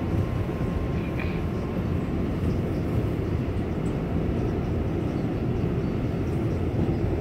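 New York City subway 7 train in motion, heard from inside the car: a steady low rumble of the car running along the track.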